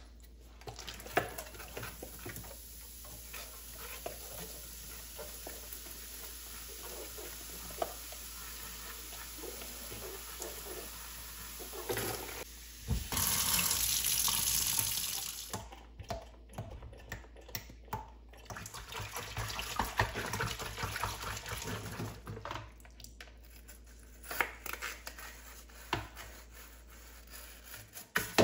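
Water running from a tap while something is rinsed and handled, with scattered clicks and knocks. The water runs loudest for a couple of seconds about halfway through.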